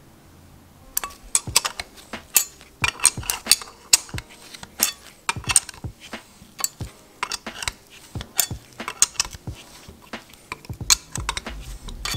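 Steel spanner wrench clinking against the threaded preload collar of an ISC N1 coilover as the collar is worked up the threaded shock body: a string of irregular, sharp metallic clicks that starts about a second in.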